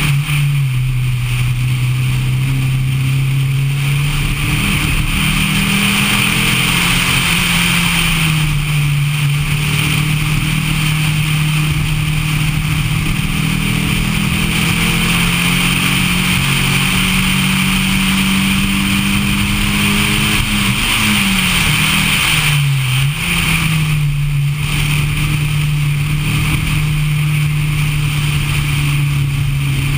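Dodge Neon's four-cylinder engine pulling at speed on track, its pitch climbing and falling with gear changes, over steady wind and road noise. A little over two-thirds through, the pitch drops quickly and rises again.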